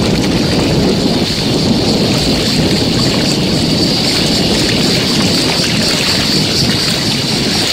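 Wind buffeting the microphone on an open seashore, a loud steady low rumble, with a steady high-pitched hiss running above it.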